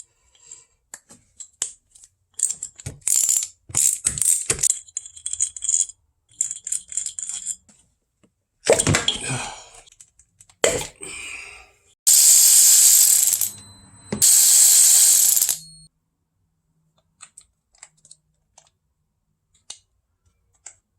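Bolts being removed from an engine with a wrench: scattered metallic clicking, ratcheting and clinking of tool and bolts, with two loud buzzing bursts of about a second and a half each a little past the middle.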